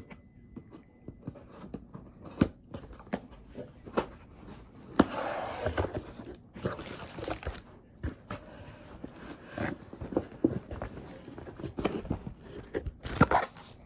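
Cardboard box and paper packaging being handled and torn open: tearing and crinkling with scattered knocks and taps, including a longer stretch of rustling about five seconds in and another burst of tearing near the end.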